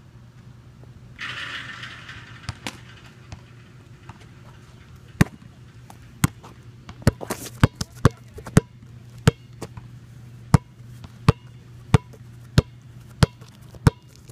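Basketball dribbled on an outdoor court: sharp bounces begin about five seconds in and settle into an even beat of about three every two seconds, over a steady low hum. A brief rustle comes about a second in.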